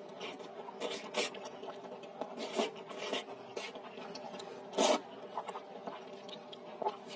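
Close-miked eating of noodle soup: chewing with short wet smacks and slurps in an irregular scatter, the loudest slurp about five seconds in.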